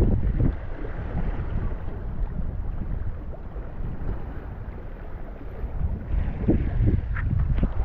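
Wind buffeting the microphone in a steady low rumble, with stronger gusts near the end.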